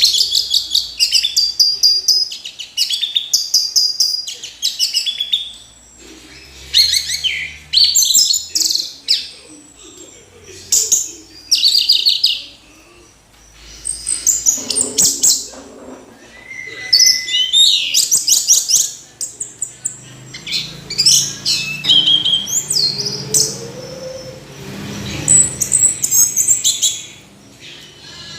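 Orange-headed thrush singing in loud bursts of fast, varied whistled and chattering notes. Each phrase lasts a second or two, with short pauses between phrases.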